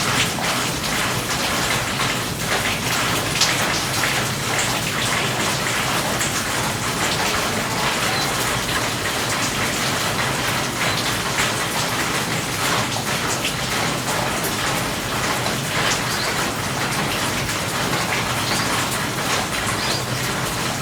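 Steady rain: a dense, even hiss of rainfall with many individual drops striking close by.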